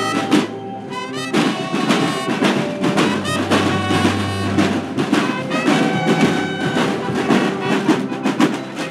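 Band music with brass and drums, with many percussive strokes over held notes and a steady bass.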